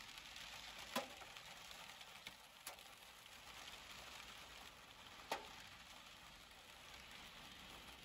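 Steady hiss of heavy rain, with three sharp taps of drops striking close by, about one, two and a half and five seconds in.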